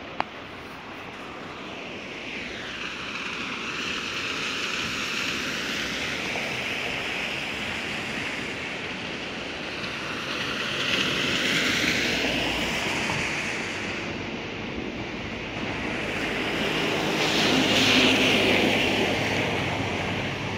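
Cars passing on a rain-soaked asphalt road, their tyres hissing through the water as each one swells up and fades away, about three times. A short sharp click comes right at the start.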